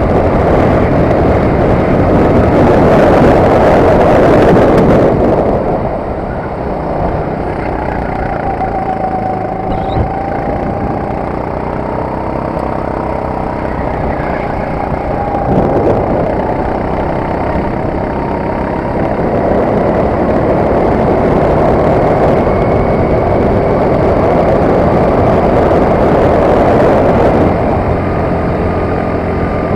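Onboard sound of a Sodi RT8 rental kart's four-stroke engine at speed. It runs loud and full for the first five seconds, then drops off sharply and stays lower with a wavering pitch through the middle. It builds back up over the second half and eases again near the end.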